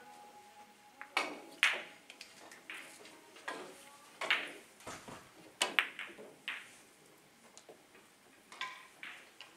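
Carom billiard balls clicking in a three-cushion game: sharp clicks of cue tip on ball and ball striking ball, about nine at uneven intervals, several coming in quick pairs, the loudest pair about a second and a half in.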